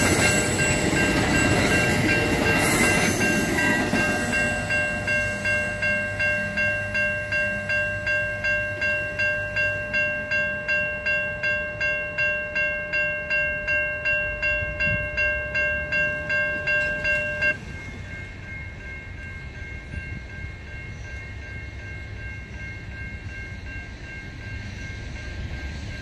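AMT bilevel commuter coaches rumble past on the rails for the first few seconds while a railway crossing bell rings about twice a second. The train noise fades, and the bell keeps ringing until it stops suddenly about two-thirds of the way through, leaving quiet outdoor background.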